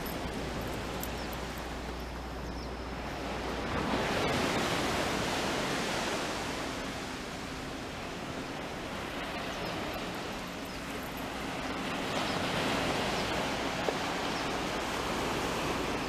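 Small waves washing onto a shallow sandy beach, a steady hiss that swells twice, about four seconds in and again near twelve seconds.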